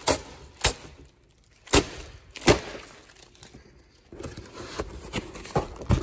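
A corrugated cardboard box being cut and pulled open by hand: four sharp cracks in the first few seconds, then cardboard flaps scraping and rustling from about four seconds in.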